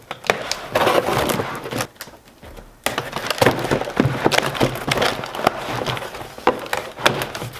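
Cardboard shipping box torn open by hand: packing tape and cardboard flaps ripping and crackling, in two spells with a short pause about two seconds in.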